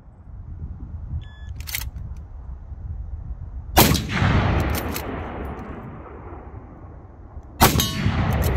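Two rifle shots about four seconds apart, each followed by a long rolling echo that dies away over a second or more.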